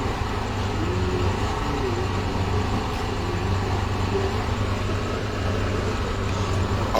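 Steady low hum under an even noisy background, with faint wavering tones in the background.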